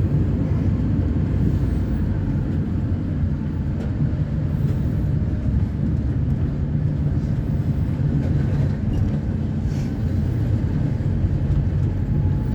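Diesel engine of an Agrale MA 10.0 midibus (Neobus Thunder body) running steadily, with a low rumble at a nearly constant engine speed.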